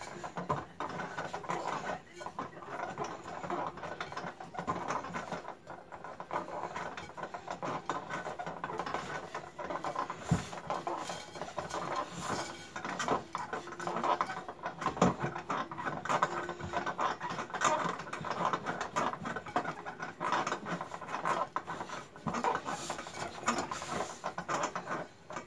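Stiff flour-and-egg mantı dough being kneaded by hand in a glass bowl: an irregular run of soft pressing and squishing with small taps and a few knocks against the glass. The dough is still being worked to make it firmer and smoother.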